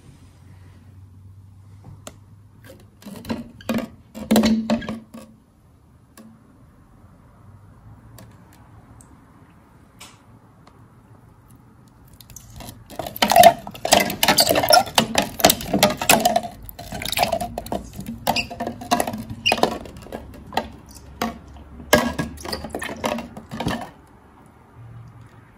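Ice cubes clinking and knocking against the sides of a jug as a spoon stirs a cold drink. There is a short cluster of clinks early on, then a longer stretch of quick, irregular clatter from about halfway in until shortly before the end.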